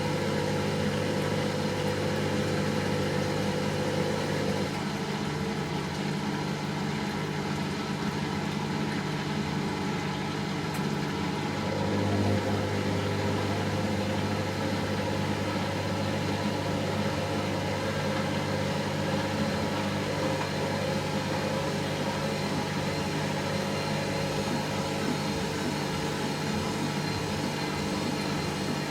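Hoover Nextra HNL71463D washing machine in its final spin: the motor and drum run with a steady hum. The hum shifts in pitch about five seconds in, and again about twelve seconds in, where it briefly gets a little louder as the spin speed changes.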